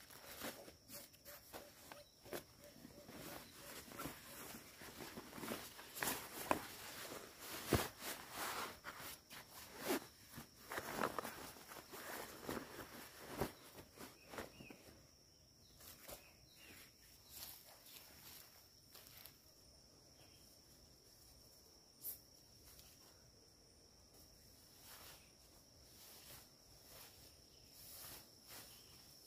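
Rustling and crinkling of a nylon backpack and stuff sacks being handled and packed, with scattered soft knocks, thick in the first half and sparser later. A steady high insect drone runs underneath.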